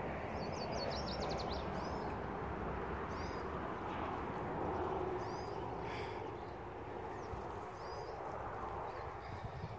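Small songbirds giving short high chirps every second or two, with a quick trill about a second in, over a steady rush of wind.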